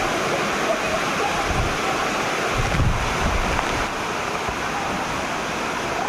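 Waterfall crashing into a rock plunge pool: a steady, loud rush of falling water.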